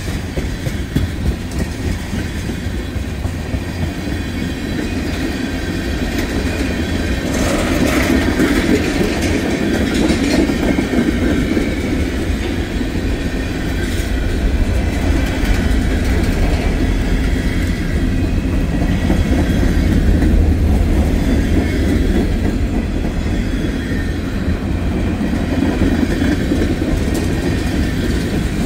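Freight train cars rolling past on the nearest track, a steady heavy rumble that grows louder. Sharp clicks from the wheels stand out a few times.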